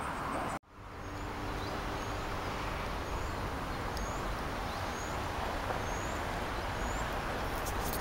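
Steady road traffic noise with a short, high rising chirp repeating about once a second. The sound cuts out for a moment just after the start.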